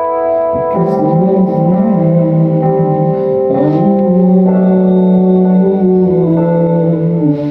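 Live band rehearsal music: an electronic keyboard plays sustained organ-like chords. About a second in, a lower melody line enters, wavers, and then holds one long note near the end.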